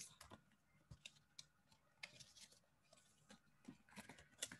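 Near silence: quiet room tone with faint, irregularly spaced clicks.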